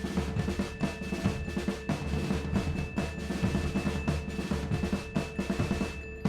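Upbeat background music driven by drums and percussion, with a steady beat.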